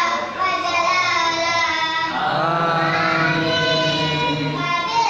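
A boy reciting the Qur'an aloud into a microphone in a melodic chant. His voice rises and falls through long held notes, and a deeper line comes in about two seconds in and holds for a couple of seconds.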